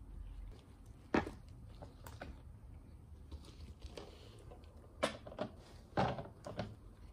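Handling sounds of kitchen things being moved and set down on a table: a handful of short, separate knocks and thuds. The loudest come about a second in and again around five to six seconds in.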